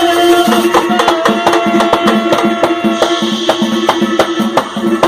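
Samba circle percussion playing: quick sharp hits over a steady low beat of about three strokes a second. A held tone sounds over it and stops shortly before the end.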